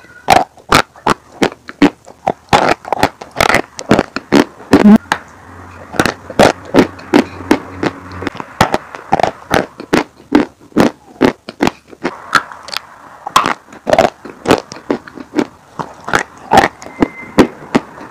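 Dry sawn chalk being chewed close to the microphone: a continuous run of sharp, dry crunches, two or three a second.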